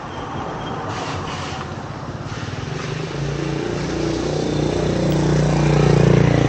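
A motorcycle engine passing close by, growing steadily louder to a peak near the end.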